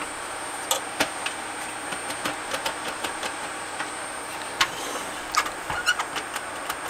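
Irregular light clicks and knocks of plastic and metal parts being handled while working the front panel off a Sony CDP-491 CD player. There is a sharp click right at the start, another about four and a half seconds in, and a quick cluster of clicks near six seconds, over a steady background hiss.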